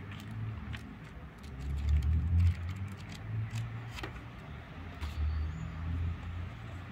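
Thin paper pages of a sketchbook flicking and rustling under a hand, with short clicks as the leaves turn. A low rumble runs underneath and is loudest about two seconds in.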